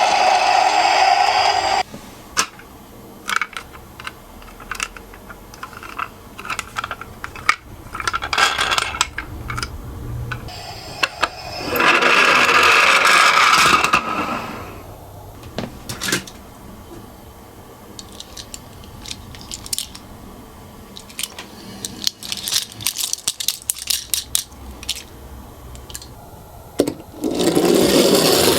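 Small toy cars clicking and clattering as they run on a slope track, with many sharp, scattered little knocks. Three louder pitched sounds, each lasting a second or two, come in at the start, about halfway through and near the end.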